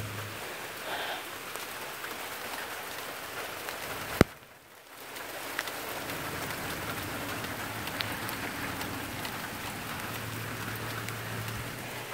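Steady rain falling on wet garden plants and surfaces. A single sharp knock comes about four seconds in, and the sound dips briefly just after it.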